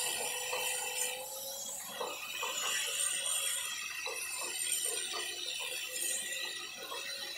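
Light metallic clicks and clinks of a hand tool gripping and turning a nut on a steel gate, coming irregularly, several a second.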